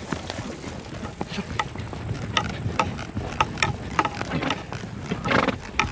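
Horses being ridden: short knocks and squeaks come in a steady rhythm about twice a second, in time with the strides, with wind on the microphone beneath.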